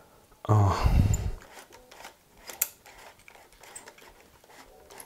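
Flexaret twin-lens reflex camera being handled while its film-advance knob is turned to wind on fresh roll film: scattered small clicks and ticks from the knob and the camera body. A louder, low handling thump comes about half a second in.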